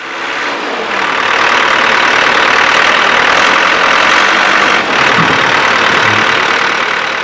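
Diesel engine of heavy equipment running steadily, rising to full level within the first second.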